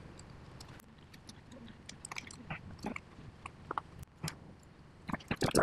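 Scattered small clicks, taps and crunches from a 3D printer hot end assembly being handled and pulled apart, with a quick cluster of louder clicks near the end.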